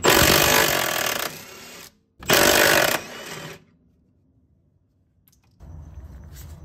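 Cordless impact wrench hammering in two bursts, the first about two seconds long and the second about a second and a half, undoing the ball joint bolts on the front suspension.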